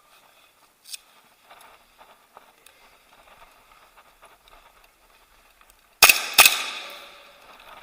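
Two loud, sharp airsoft gun shots close to the microphone about six seconds in, under half a second apart, each leaving a ringing tail that fades over about a second. Before them, only faint rustling and light clicks of movement.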